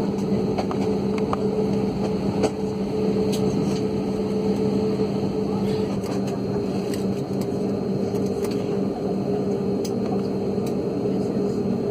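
Jet airliner cabin noise while taxiing: a steady engine drone with two constant low hums, with no rise or fall in power, and a few faint clicks.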